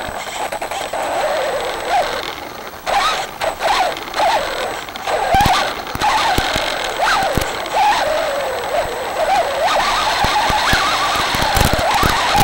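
Traxxas Slash 4x4 VXL RC truck's brushless electric motor and drivetrain whining, the pitch rising and falling over and over as the throttle is worked. Scattered clicks and knocks run through it.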